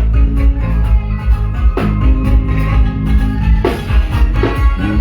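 Live band playing an upbeat tune with guitar, heavy bass and drum kit keeping a steady beat.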